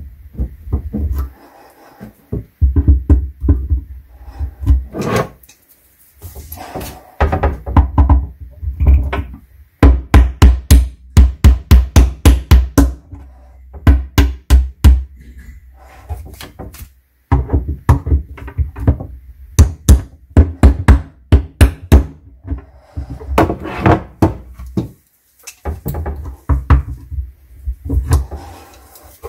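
Claw hammer striking a particleboard cabinet shelf and its metal pliers in quick runs of blows, up to about five a second, with short pauses between runs: knocking loose a shelf that is glued and nailed in place.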